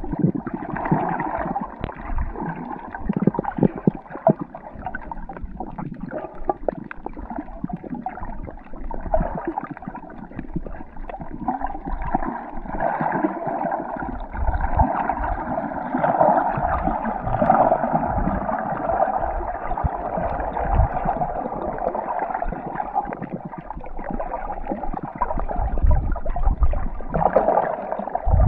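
Underwater sound through a submerged camera: muffled gurgling and sloshing of water, dull and without any high pitches, with scattered clicks and low rumbles.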